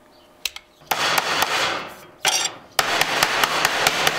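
Rapid rasping strokes of a hand tool dressing the freshly cut edges of a piece of sheet metal. There are two light clicks first, then three runs of rough scraping: the first about a second long, a short one, and a longer one near the end.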